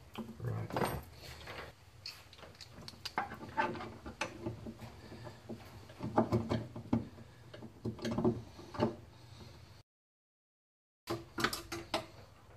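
A hex key and a small metal bracket being handled and fitted against a steel frame rail: a run of small metal clicks, taps and knocks. The sound cuts to total silence for about a second near the end, then the clicking resumes.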